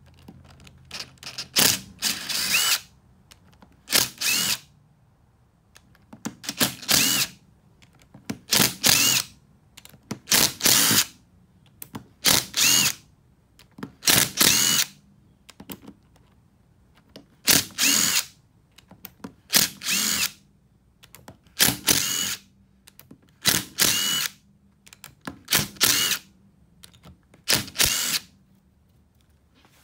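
A DeWalt cordless driver backing Torx screws out of a Chrysler 62TE transmission's solenoid pack. It runs in short bursts, one screw after another, about one every two seconds and more than a dozen times.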